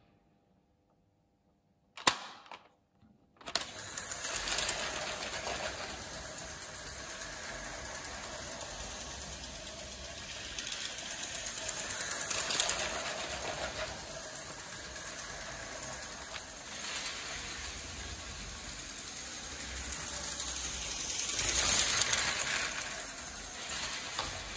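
After about two seconds of near silence and a single click, a LEGO 12-volt toy train runs on its track: a steady whirr of the small motor and gears with clattering wheels. It swells as a locomotive passes close about twelve seconds in, and again near the end.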